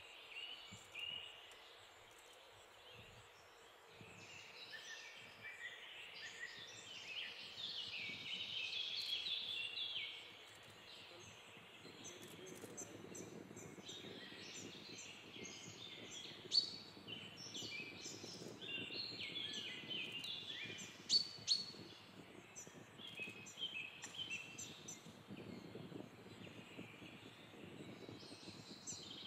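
Wild birds chirping and trilling over one another in a busy, fairly faint chorus, with low outdoor background noise that grows heavier about twelve seconds in. Two sharp clicks stand out, one just past the middle and one a few seconds later.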